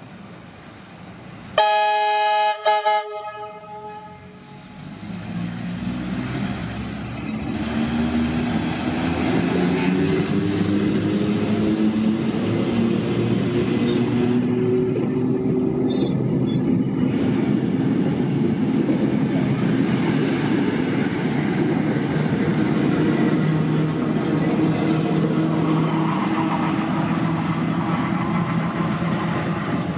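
Tait electric suburban train sounds two short horn blasts, then moves off. A steady rumble builds, and its motors whine slowly up in pitch as it gathers speed.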